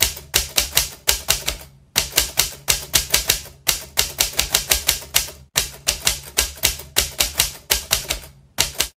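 Typewriter keystroke sound effect: quick runs of sharp key clicks, about five a second, broken by brief pauses every couple of seconds like line returns, stopping abruptly near the end.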